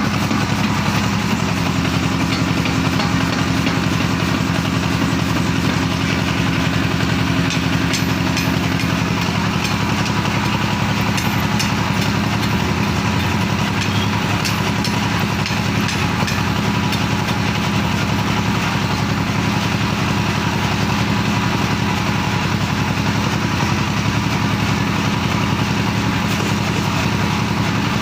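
Power forging hammer running steadily, a continuous engine-like mechanical drone at an even level.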